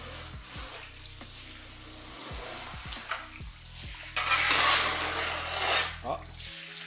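Metal squeegee dragged across a soaked, soapy rug and wet tiles, squeezing out foamy water with a wet, hissing scrape. The loudest stroke starts about four seconds in and lasts nearly two seconds.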